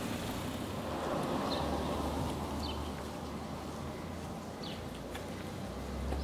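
Outdoor ambience: a steady low rumble with a few brief, high bird chirps. Later there are faint footsteps on wet pavement.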